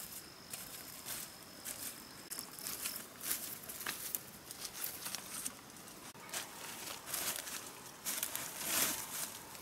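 Footsteps through dry bamboo leaves and undergrowth: irregular crackling and rustling of dead leaves and twigs underfoot as someone walks barefoot, with a denser rustle near the end.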